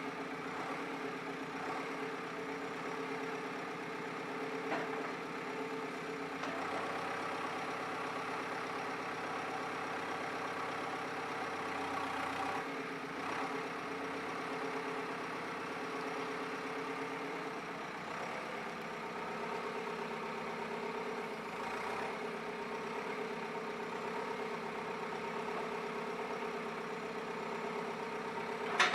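JCB 3CX backhoe loader's diesel engine idling steadily, with a sharp knock right at the end.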